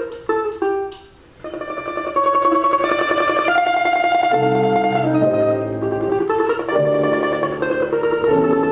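Plucked string instrument playing a Russian folk-song melody: a quick descending run of plucked notes, a brief pause about a second in, then held notes played in tremolo. From about four and a half seconds in, an accompaniment of held low chords joins.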